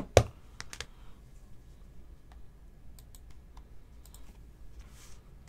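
Clicks and taps of rigid plastic card holders and trading cards being handled and set down on a table. Two sharp clicks at the start, then scattered lighter clicks and a brief soft rustle near the end.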